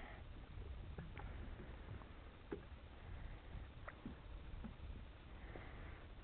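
Faint low rumble with scattered small knocks and clicks: water lapping against a small boat's hull at sea.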